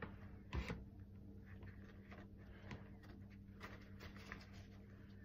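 Faint rustling and small taps of a wet paper-towel wipe being pulled from its soaked stack, with a slightly louder knock about half a second in, over a low steady hum.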